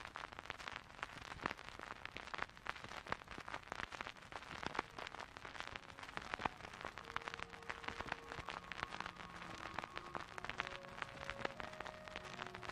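Experimental dark ambient music: a dense, continuous crackle like static or rain, with a few quiet held tones at shifting pitches entering about seven seconds in.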